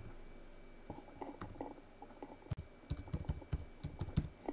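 Computer keyboard typing: a quiet, irregular run of keystrokes starting about a second in.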